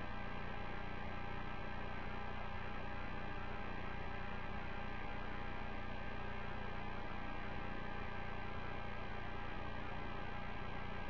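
Steady hum with several fixed tones that hold an even level throughout, the background of the Space Shuttle Atlantis flight-deck audio feed.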